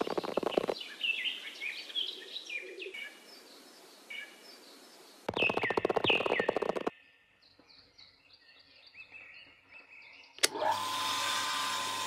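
Small birds chirping and tweeting, broken twice by a short burst of rapid buzzing rattle. About ten seconds in, a sharp click and steady background music begins.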